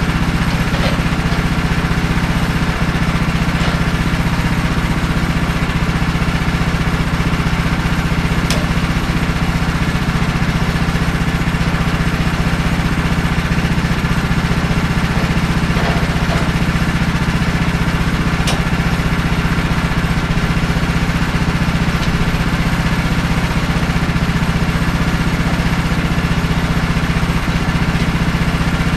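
Portable bandsaw mill's engine idling steadily while the sawhead stands still, with a few faint clicks.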